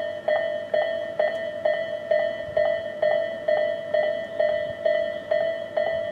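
Japanese railroad crossing warning bell ringing steadily, about two strikes a second, each one a bright clang that rings on briefly: the crossing is active, a train is approaching or passing.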